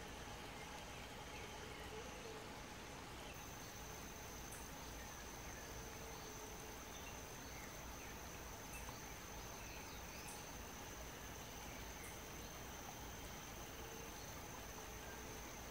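Steady forest background of insects: a continuous high-pitched insect trill, pulsing for the first few seconds and then steady, with faint scattered bird chirps.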